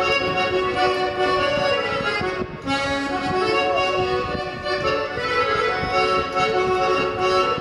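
Estonian folk dance music, with a short break in the tune about two and a half seconds in.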